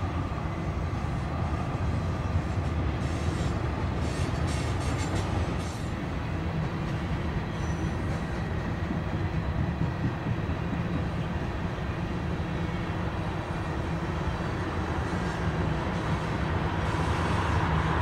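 Freight train cars rolling past on the rails: a steady rumble of wheels and cars, with a few light clicks a few seconds in, growing louder near the end.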